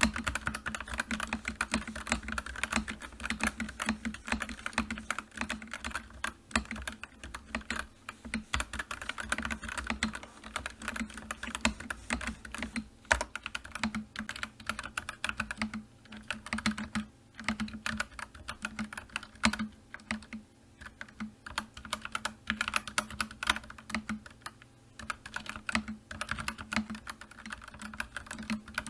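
Computer keyboard being typed on: a rapid, irregular clatter of key clicks that keeps going with only brief pauses.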